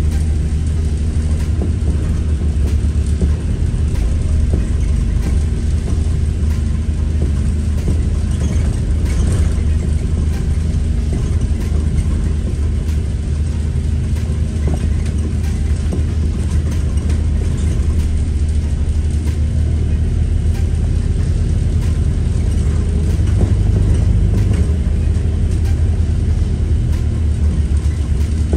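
Bus in motion: the steady low rumble of its engine and running gear with road noise, swelling a little for a few seconds near the end.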